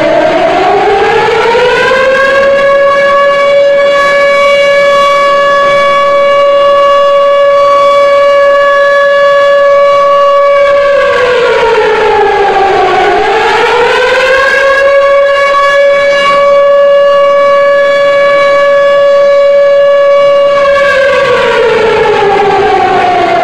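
Civil-defence siren sounding a loud wail for the two-minute moment of silence. Its tone rises and holds steady for about nine seconds, dips and climbs again about halfway, holds again, and starts to fall near the end.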